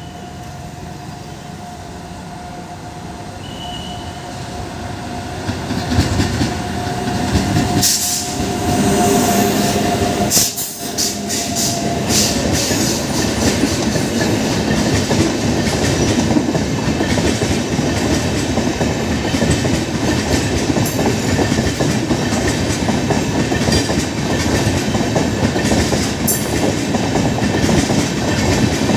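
WAP-7 electric locomotive approaching and running past with a passenger train, growing louder over the first several seconds, with a steady whine while the locomotive is near. It is followed by LHB coaches rolling by at speed, their wheels rumbling and clattering over the rail joints.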